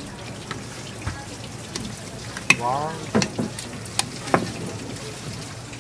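A steel knife blade scraping and clicking against the pearly inside of a giant green turban snail (yakogai) shell as the meat is pried loose, with a handful of sharp clicks in the middle, over a steady hiss.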